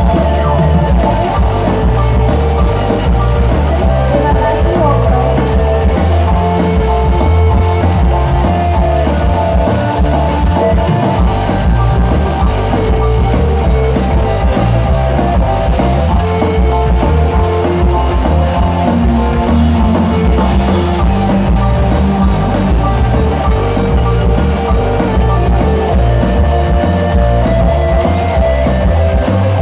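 Loud music with a heavy, steady bass beat.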